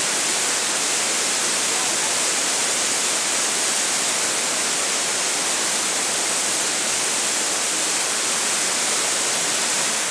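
Whitewater rapids tumbling over rock on a creek: a steady, unbroken rush of water, loud and hissy.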